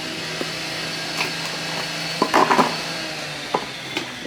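A steady low hum with several sharp knocks and a brief clatter of hard objects about two and a half seconds in; the hum stops near the end.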